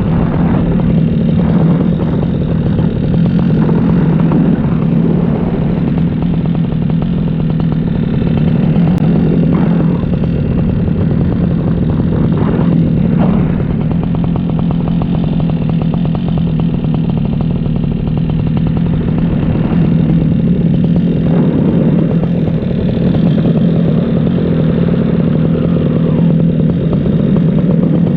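Paramotor engine and propeller running steadily at an even pitch, with a rushing wind-like hiss over it.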